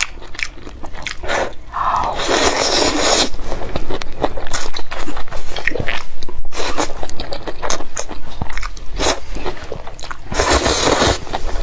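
Close-miked eating of stir-fried instant noodles: wet chewing and mouth clicks throughout, and two long slurps of noodles, one about two seconds in and one near the end.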